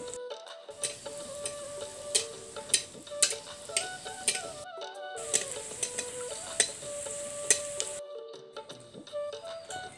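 Hot oil sizzling in an iron karahi as stuffed dough pieces deep-fry, with a metal ladle clinking and scraping against the pan as hot oil is splashed over the pieces. The clinks are the loudest sounds. Background instrumental music plays over it, and the sound drops out briefly twice.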